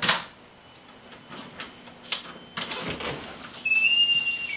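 A house door being opened: its latch clicks sharply as the knob is turned, then a few knocks and a scraping rustle as it swings. Near the end a steady high squeak lasts about a second and drops in pitch as it stops, as from a door hinge or closer.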